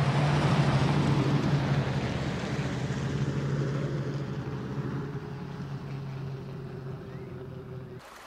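A vehicle engine running with a steady low hum, loudest about a second in and fading gradually over the following seconds, then cutting off abruptly near the end.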